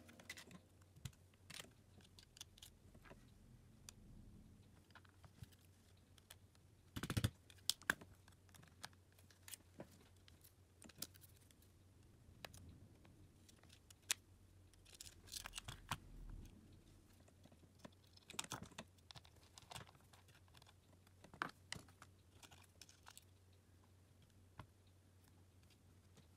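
Faint, scattered small clicks and light scrapes of hand tools and phone parts being handled during a smartphone screen repair, with one louder clatter about seven seconds in.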